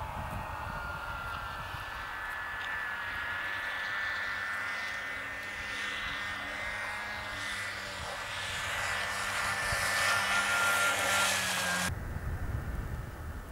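Snowmobile engine running with a steady whine, growing louder as the machine approaches. Near the end the sound switches abruptly to a low-pitched noise.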